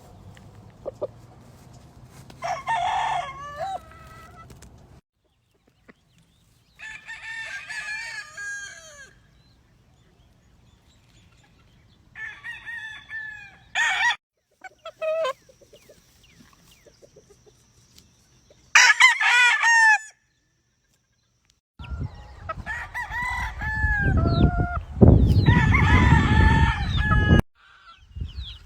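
Gamefowl roosters crowing about six times in turn, each crow a second or two long with gaps between, with some clucking. Near the end a crow comes over a loud low rumble.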